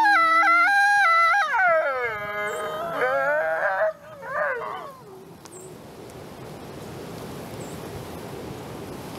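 Gray wolf howling: long held notes that step up and down in pitch, then glide downward and stop about five seconds in. A lower, steady tone runs beneath at first and stops within the first second. After the howl there is only a faint steady rush of wind.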